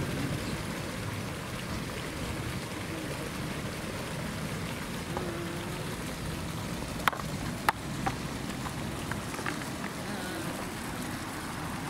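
Steady splashing rush of water from a small park pond's inflow, with a few sharp clicks about seven to eight seconds in.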